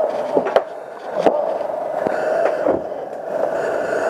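A steady droning hum throughout, with a few sharp knocks and scraping of firefighting gear against metal, two knocks coming in the first second and a half.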